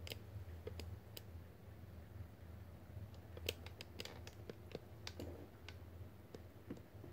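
Soft, irregular clicks and taps of handling noise, more frequent in the middle, over a low steady hum.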